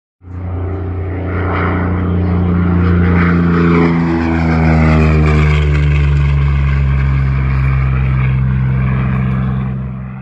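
Piston engines of a propeller aircraft running with a low, steady drone whose pitch shifts down about four seconds in. The sound starts abruptly and cuts off at the end.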